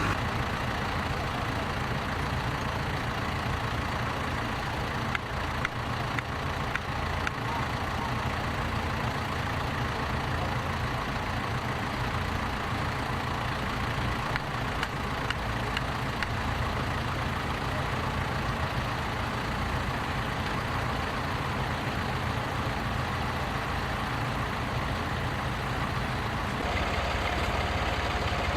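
Tractor engine running steadily, with its drone changing slightly near the end.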